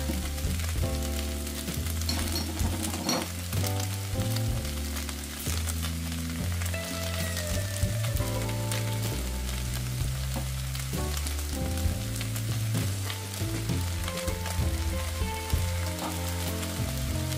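Stir-fry sizzling in a hot pan, with the clicks and scrapes of stirring through it. A background music bass line runs underneath.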